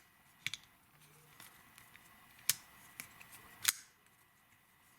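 Buck Langford folding pocket knife being handled: a few sharp metallic clicks, the loudest about two and a half and three and a half seconds in.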